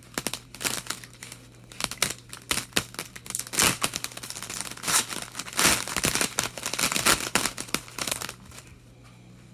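A hockey card pack's wrapper being torn open and crinkled by hand, in a run of irregular crackles that die away near the end.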